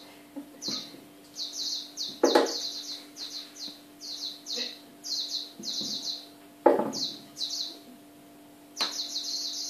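High-pitched, bird-like chirping in quick repeated trills, becoming almost continuous near the end. Two dull thumps, about two seconds in and again near seven seconds, are the loudest sounds.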